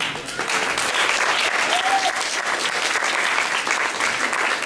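An audience breaks into applause and keeps clapping steadily.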